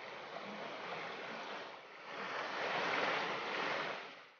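Shallow creek water rushing over a gravel bed, growing louder about halfway through, then fading out at the end.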